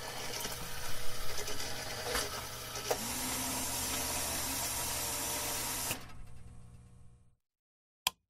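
The tail end of a recorded song: a sustained noisy wash over a steady low hum fades away about six to seven seconds in, followed by silence broken by one brief click near the end.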